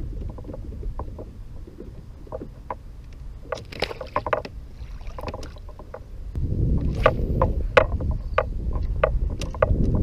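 Wind rumbling on the microphone aboard a fishing kayak, getting much louder about six seconds in, with scattered small clicks and knocks through it.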